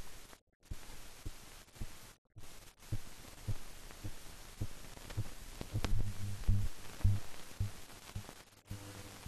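Surface noise of an old film soundtrack with no recorded sound: steady hiss with scattered crackles and irregular low thumps, cutting out completely for a moment a few times.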